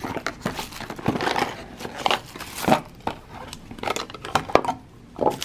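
Packaging being handled: a cardboard box and its plastic wrap rustling and crinkling, with irregular clicks and taps of a clear plastic cube display case.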